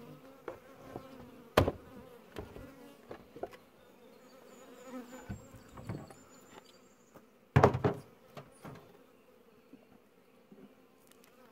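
Honeybees humming steadily around an open hive, broken by sharp knocks and scrapes as the sticking hive cover is worked loose: one sharp knock about a second and a half in, and the loudest cluster of knocks about eight seconds in.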